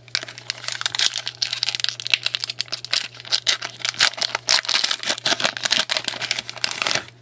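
Foil trading-card pack wrapper crinkling and tearing as it is opened by hand, a dense crackle that stops abruptly near the end.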